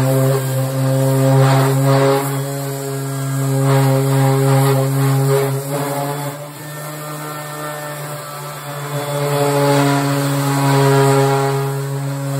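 Ridgid random orbital sander running against the painted steel decklid of a vintage VW Beetle, a steady motor hum with the scratch of the pad on the paint. It gets quieter for a few seconds midway, then picks up again.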